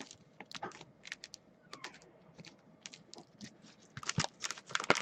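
Light, irregular clicks and taps, coming faster and louder about four seconds in.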